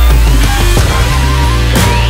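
Loud background music with a heavy bass line and drum hits, starting abruptly just before this moment.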